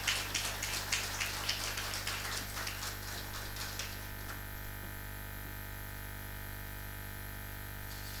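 Scattered light clicks over a steady low hum, dying away after about four seconds and starting again near the end.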